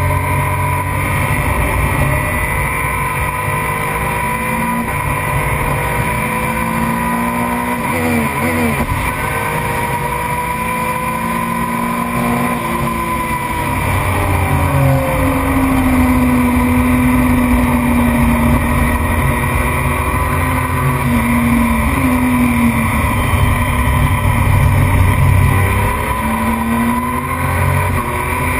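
Race motorcycle engine at full racing load on track. The revs drop sharply with downshifts about a third of the way in, climb and hold down the straight, then dip again for the next corners. A constant rush of wind runs underneath.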